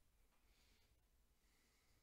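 Near silence: faint room tone with two soft hisses, about half a second in and near the end.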